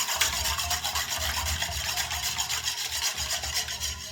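A utensil scraping and stirring in a mixing bowl of wet cornbread batter ingredients (eggs, milk, oil, melted butter), with a fast, even rhythm that stops just after the end.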